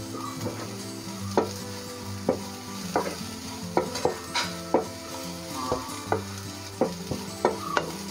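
Browned sliced onions frying in oil in a nonstick pan, stirred with a spatula. There is a light sizzle, with irregular knocks of the spatula on the pan, a little more than one a second.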